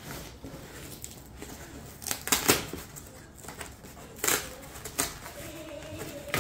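Cardboard box being pried open by hand: the flaps scrape, rub and crinkle, with several sharp snaps and rips, the loudest a cluster around two to two and a half seconds in and another a little past four seconds.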